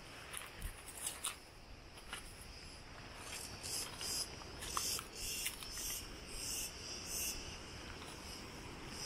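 Insects singing in repeated high, rasping pulses over a faint steady high hum, with a few light steps crunching on gravel near the start.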